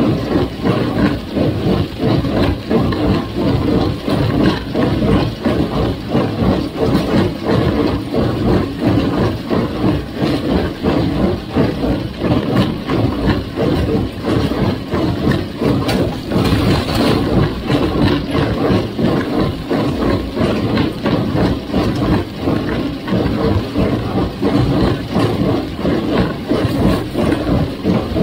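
Farmall 350 tractor's four-cylinder gas engine running steadily under load, driving a John Deere 348 square baler, with a continuous rhythmic mechanical clatter from the rig.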